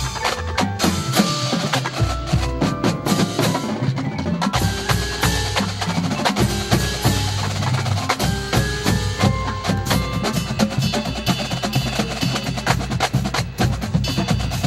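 Marching band drumline playing a busy percussion feature: dense, rapid drum strokes with short pitched mallet-percussion notes over a low sustained bass.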